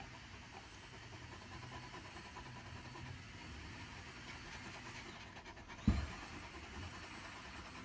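Great Pyrenees panting with its tongue out, cooling down after a walk on a hot morning, over a low steady background rumble. A single low thump comes about six seconds in.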